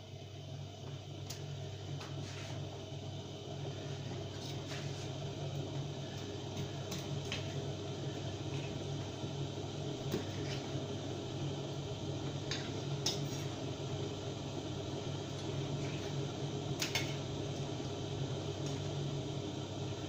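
Knife cutting carp flesh on a granite countertop, with scattered light clicks of the blade and fish pieces against the stone, over a steady low hum.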